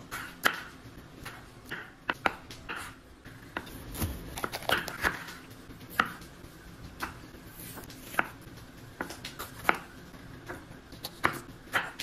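Kitchen knife slicing red chillies and then a pepper on a wooden cutting board: irregular knocks of the blade meeting the board, roughly one a second.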